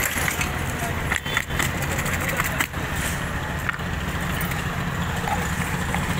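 Steady street traffic noise with vehicle engines running, a constant low rumble, and voices in the background.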